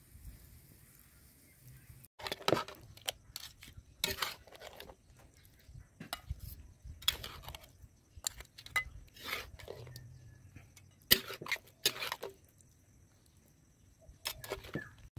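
Utensils clinking, knocking and scraping against a plate and a pot of crabs cooked in coconut milk, in scattered irregular clatters that begin about two seconds in.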